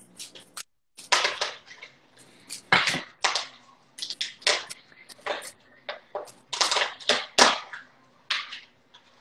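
A handheld spice grinder being twisted, crunching out seasoning in short, irregular bursts.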